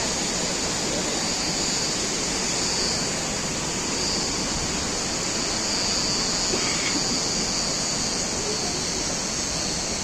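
Steady rush of the Düden Waterfall's falling water, with an even high-pitched hiss running over it.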